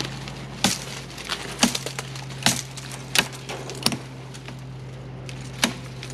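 Machete chopping through tree limbs and brush, about six sharp cracking strikes at uneven intervals of roughly a second.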